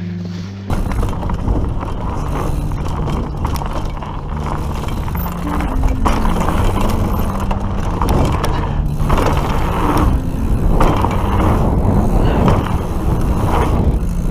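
A mountain bike riding over dirt jumps: tyre and chain rattle and clatter begin abruptly about a second in. Music with a stepped bass line plays underneath.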